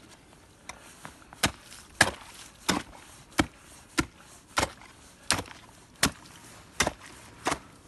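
Ice chisel striking down into refrozen pond ice, chopping open a frozen-over ice hole: about ten sharp blows at an even pace, roughly one every 0.7 seconds.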